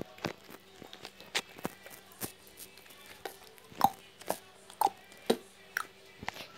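Irregular sharp clicks and taps close to the microphone, about a dozen over several seconds, the loudest around the middle.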